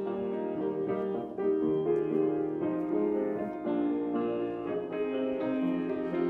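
Piano music, a new chord or note sounding every half second or so.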